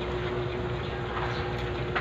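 Steady background noise with a constant low hum, and two faint soft clicks of someone eating by hand.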